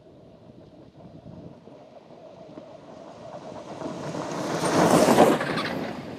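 All-electric twin-motor off-road race car driving fast on a dirt track and passing close by: its noise builds up, is loudest about five seconds in, then fades as it goes past.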